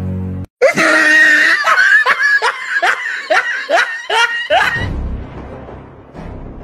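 A burst of laughter dropped in as a sound effect: a run of short, high 'ha' syllables, each falling in pitch, about two to three a second for some four seconds. It starts right after the background music cuts out abruptly, and the music returns near the end.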